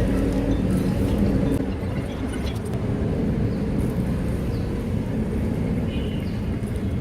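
A steady low rumble, like a motor vehicle's engine running nearby, easing a little about two seconds in, with a few faint clicks.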